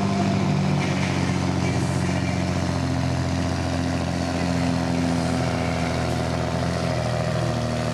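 Scania P92 truck's diesel engine running hard under full load as it pulls a weight-transfer sled, holding a steady pitch.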